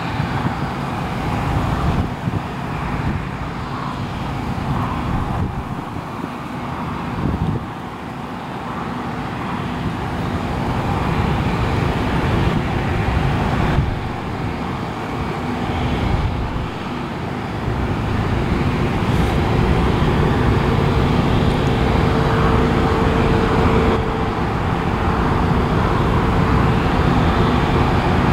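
Claas Lexion 600TT tracked combine harvester running steadily under load while cutting oilseed rape, with a steady engine hum and a faint whine that grows a little louder about two-thirds of the way in.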